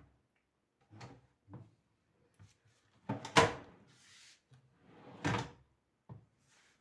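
Kitchen drawer on ungreased metal telescopic ball-bearing slides being pushed and pulled, giving a series of sharp knocks and clacks; the loudest comes about halfway through and another near the end. The slides and soft-close catch are dry, the knocking that graphite grease is meant to cure.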